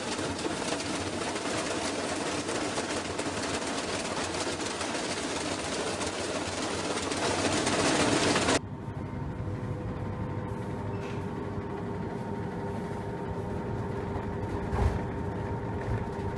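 Top-load washing machine running, a steady rattling noise that grows a little louder and then cuts off abruptly about eight and a half seconds in. After that comes a quieter steady machine hum with a faint whine, and a single knock near the end.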